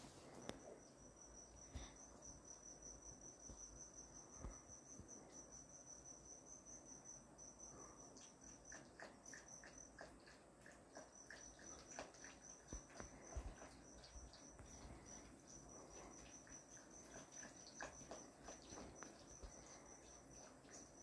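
Faint cricket chirping, a steady rapid high trill that breaks off briefly about ten seconds in. Soft clicks and taps from two puppies at a steel bowl come in over the second half.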